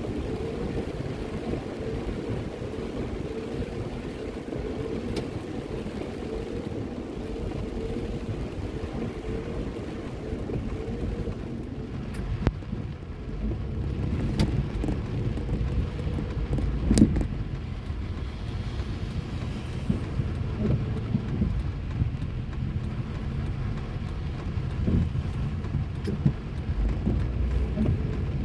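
A car's cabin noise while it drives on a wet road: a steady low rumble from the engine and tyres. A few short knocks sound through it, the loudest a little past halfway.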